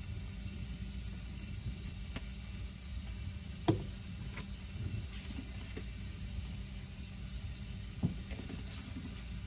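Ground meat sizzling in a frying pan on a gas stove, with two light knocks, about four seconds in and again near the end.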